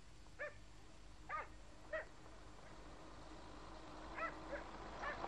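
About six short, high-pitched animal calls, faint and spaced out, two of them in quick succession about four seconds in.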